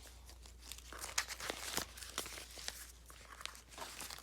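Packaging being handled and unwrapped: paper or plastic wrapping crinkling, with scattered sharp crackles and clicks.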